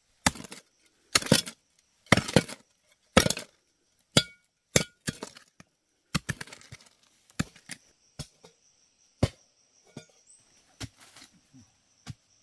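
Sharp, repeated strikes of a hand tool, about one blow a second, loudest in the first few seconds and lighter after about six seconds.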